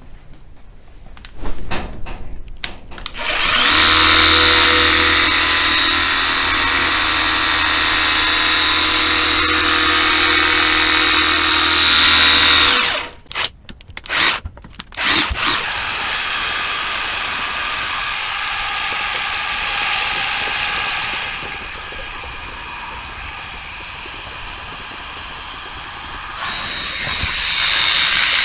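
Cordless pressure washer's electric pump running, drawing washer fluid out of the bottle through its inlet pipe. It runs steadily, cuts out about thirteen seconds in, starts and stops in a few short bursts, then runs on more quietly.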